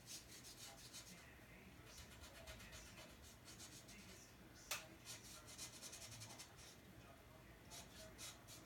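Japanese brush pen stroking on paper in runs of quick, short scratchy dabs, faint, with a pause near the end. About halfway through there is one sharp tick, the loudest sound.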